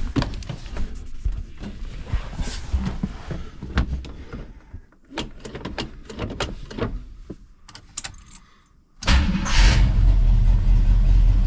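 Scattered clicks and knocks, then about nine seconds in the AMC 360 V8 of a 1979 Jeep Wagoneer starts from cold and settles into a steady run. It is running with the valve cover off and has a lifter tap that the owner is trying to track down.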